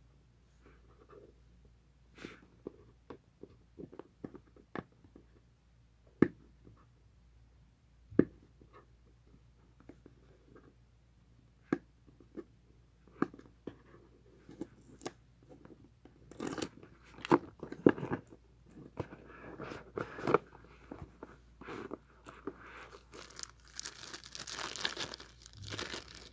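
Fingers tapping and scratching at a cardboard phone box, scattered clicks at first. About halfway through the box is worked open, and the rustling and crinkling of cardboard and plastic film grow denser and louder as the phone is lifted out near the end.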